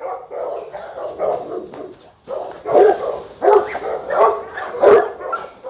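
Boerboel dogs barking repeatedly: a rough, crowded stretch of barking, then from about halfway through single loud barks about one every three-quarters of a second.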